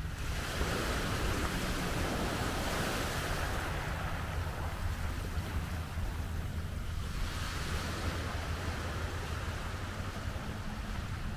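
Small waves washing up a sandy, pebbly beach, swelling twice and easing back, with a steady rumble of wind on the microphone underneath.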